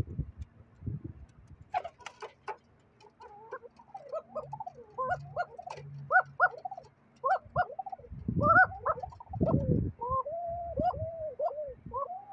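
White domestic pigeons cooing in a rapid run of short rising-and-falling calls, several a second, that keeps going. A few low thumps break in, the loudest two near the middle.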